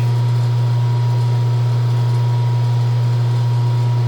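Steady, loud low electrical hum of a running phase converter and lathe drive motor, with a faint steady high whine above it.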